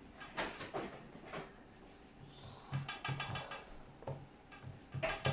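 Pizza dough being pressed and patted by hand and worked with a wooden rolling pin on a floured glass tabletop: a few soft, scattered knocks and pats.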